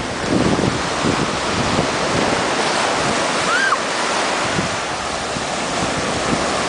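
Ocean surf breaking and washing up the beach in a steady rush of foam, with wind buffeting the microphone.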